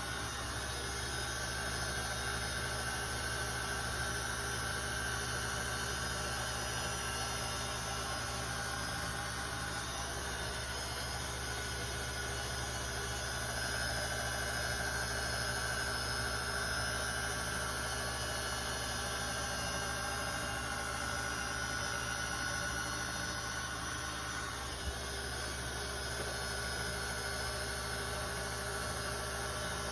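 Steady mechanical hum with a faint whine running through it, and a single click about 25 seconds in.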